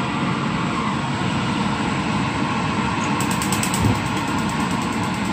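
Steady mechanical whir with no change in pitch, with one low thump about four seconds in.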